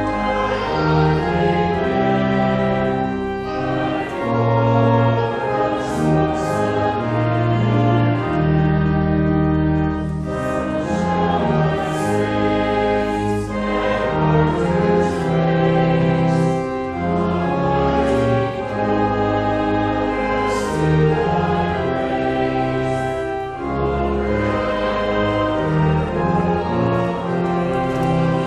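A hymn: voices singing over an accompaniment of long, held chords that change every second or so.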